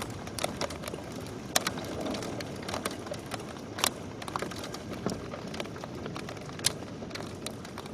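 Hailstones striking in a severe thunderstorm: irregular sharp ticks and taps, several a second, over a steady hiss.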